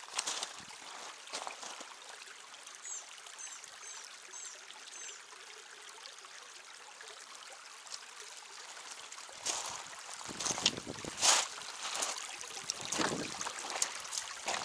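Shallow creek water trickling, with a few short bird chirps a few seconds in. From about two-thirds of the way through come loud, repeated splashes of feet wading through the cold water.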